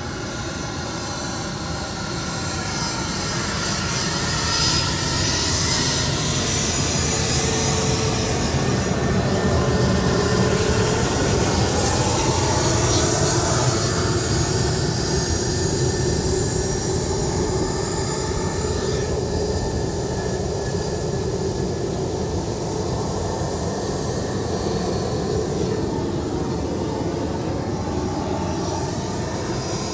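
Turbofan engines of a Bombardier Challenger 300 business jet going by, getting steadily louder for about ten seconds and then easing off, with a rushing sound and whining tones that slide in pitch.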